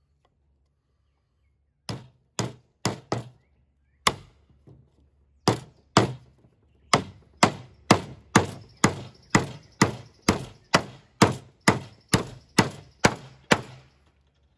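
Stanley 16 oz claw hammer striking the head of a 4-inch threaded nail, driving it into a pine 2x4. The hammering starts about two seconds in with a few light taps to set the nail, then a couple of single blows. It then becomes a steady run of about fifteen hard blows, roughly two a second, each a sharp strike with a short ring.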